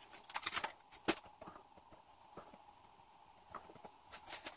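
A wet screen-cleaning wipe is rubbed over a phone's bare glass screen, with a faint, irregular scatter of light clicks and taps from the wipe and fingers on the glass.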